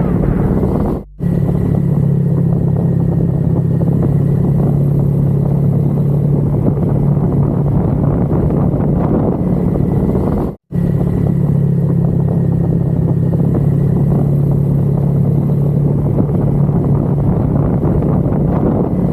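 Motorcycle engine running at a steady cruise with heavy wind and road noise while riding. The sound cuts out for a moment twice, about a second in and just past the middle.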